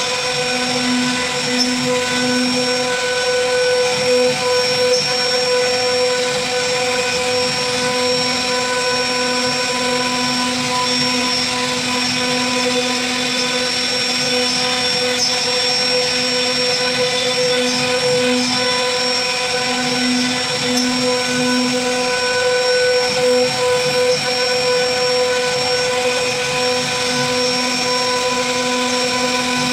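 CNC wood router spindle running at a steady speed, a continuous whine, while its bit carves a relief into a wooden board.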